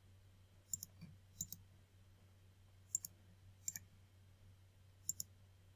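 Computer mouse button clicks: about five short, sharp clicks, several in quick pairs, spread over a few seconds above a faint steady low hum.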